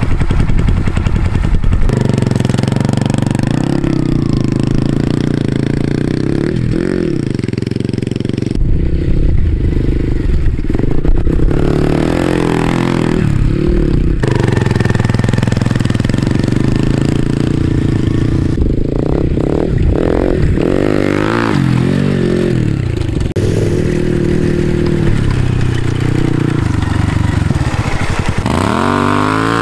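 Motorcycle engines running and revving over rough ground in a series of short cut-together clips, the pitch rising and falling with the throttle and jumping at each cut. A sharp rev rises near the end.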